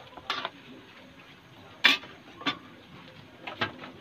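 A metal spatula clinking against a metal pan while chicken pieces in broth are stirred: four separate knocks, the loudest about two seconds in.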